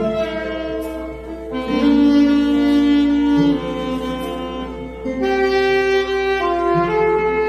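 Saxophone playing a slow ballad melody in long held notes that change every second or two.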